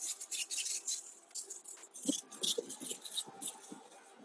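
Hand pump sprayer spraying sealer onto flagstone: a string of short hissing spurts, several a second, with a few soft knocks about halfway through.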